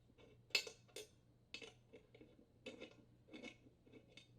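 Faint, irregular metallic clicks and light scrapes, about six in all, the sharpest about half a second in: the two screws on a new washer tub mounting hub being loosened with a hand tool.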